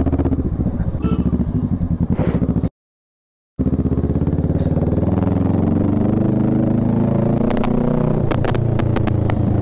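Kawasaki Z650's parallel-twin engine running steadily at low road speed, heard from the rider's seat. The sound drops out completely for about a second near the third second, and a run of sharp clicks comes near the end.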